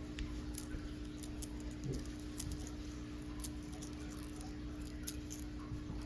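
Sparse light clicks and taps of small metal parts being handled while a clipper blade is fitted onto a hair trimmer, over a steady low hum.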